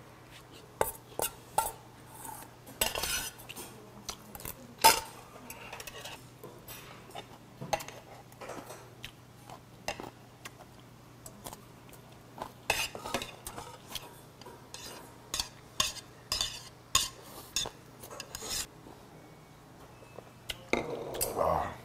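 A metal spoon clinking and scraping in a stainless steel bowl as the last of the food is spooned up and the bowl is scraped clean, in short irregular clinks.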